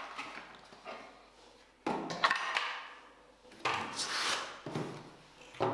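Packaging being handled: a clear plastic bag around a part rustles against the cardboard box, in two bursts of about a second each, with a sharper knock near the end.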